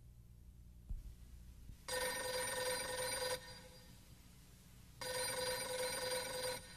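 A telephone ringing twice, each ring about a second and a half long, with a pause of about the same length between them.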